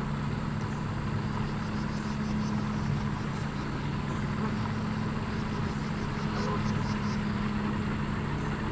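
A steady low motor hum with a continuous high-pitched buzz above it.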